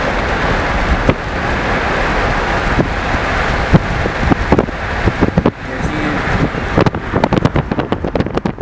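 Train passing with a steady rushing rumble, wind buffeting the microphone; sharp clicks and knocks of wheels over the rail joints come more and more often in the second half.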